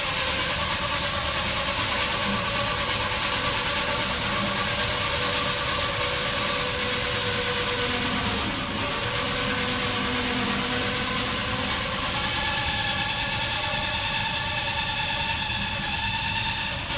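A machine running steadily: a constant hiss under several steady whining tones. About twelve seconds in, the tones shift and grow stronger in the upper range.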